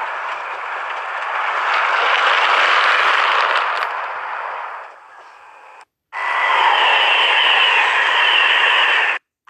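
Model train running on the layout track: a whirring rush of motor and wheels that swells and then fades. After a cut, a second steady stretch of the same whirr with a faint steady whine in it.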